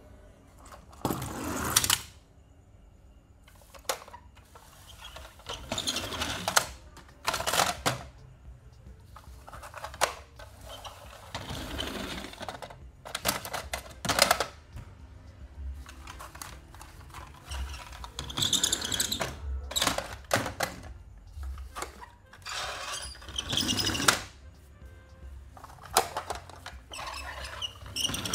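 Plastic toy hauler trucks and diecast toy cars being handled: irregular bursts of rattling and clicking as toys knock together and are picked out of a plastic bin, with wheels rolling over a corrugated plastic board.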